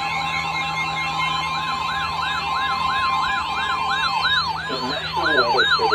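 Weather alert radios sounding their alarms together: fast electronic siren warbles overlapping a steady high alert tone. The steady tone stops about four seconds in, and the warbling turns slower and wider.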